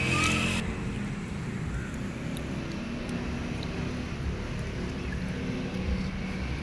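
Steady low engine noise of street traffic, a motor vehicle running close by.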